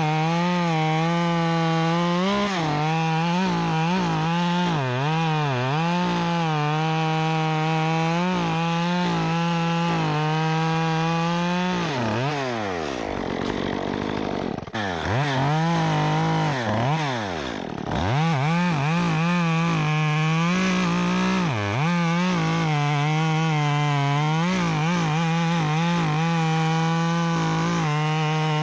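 Stihl MS 194T top-handle two-stroke chainsaw, converted to a 1/4-inch pitch chain, running at high revs while cutting wood, its pitch dipping briefly again and again as the chain bites. Twice around the middle the revs fall away steeply and then climb back up.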